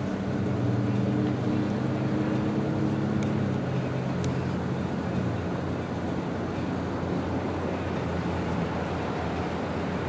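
A vehicle's engine humming, fading away about halfway through, over steady traffic noise.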